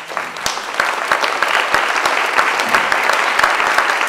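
Audience applauding: many people clapping together, swelling over the first second and then holding steady.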